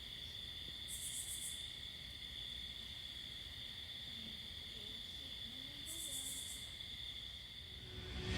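Night insect chorus: a steady high-pitched buzzing trill, with two short, higher buzzes about a second in and about six seconds in.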